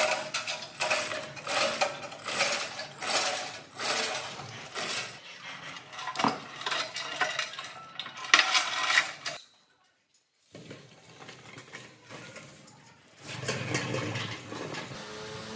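Metal being worked by hand: repeated metallic scraping and clanking strokes, a little under one a second, then more scattered clanks. About nine and a half seconds in the sound drops out for a second, and quieter clatter follows.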